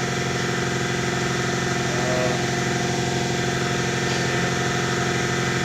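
A 16-year-old shop air compressor running steadily, with a fast, even pulse under its hum.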